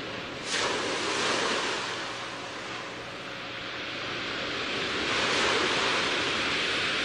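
Rushing rain-and-wind noise on an old TV commercial's soundtrack, heard behind wipers sweeping a wet windshield. It surges suddenly about half a second in and swells again around five seconds.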